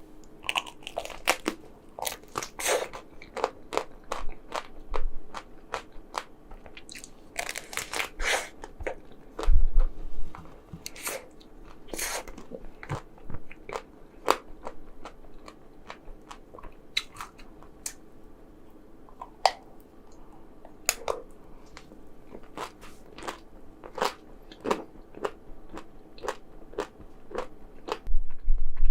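Close-miked crunching and chewing of chocolate-coated ice cream: irregular sharp crunches as the frozen chocolate shell breaks between the teeth, with wet mouth sounds in between.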